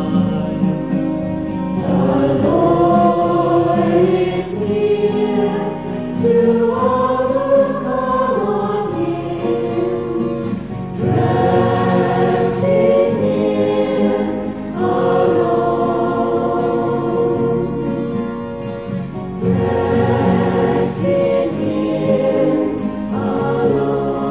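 Church choir singing a song of praise, one sung phrase after another, each a few seconds long.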